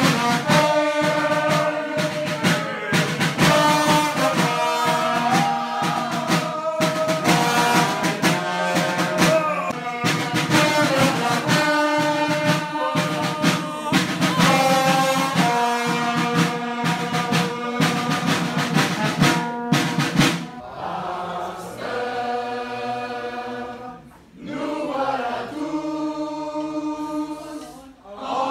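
Dunkirk carnival band music: snare and bass drums beating under brass playing a carnival tune, with a crowd singing along. About two-thirds of the way in, the drumming falls away and the music drops in level while the melody carries on.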